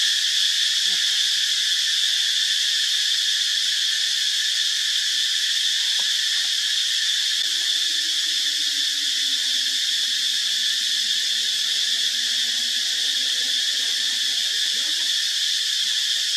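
Insects singing in a steady, loud, high-pitched chorus that holds unchanged throughout.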